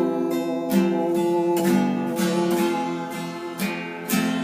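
Acoustic guitar strumming sustained chords as the song's instrumental outro, slowly getting quieter.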